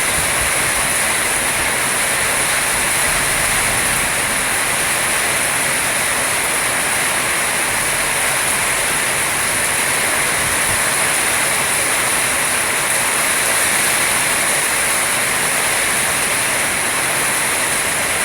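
Heavy rain pouring steadily in a storm, a dense and even hiss with strong wind.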